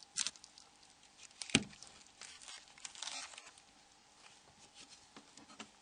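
Quiet handling noises from a Nokia 6125 mobile phone being handled during reassembly: a few small clicks, a sharper one about one and a half seconds in, and a stretch of soft rustling in the middle.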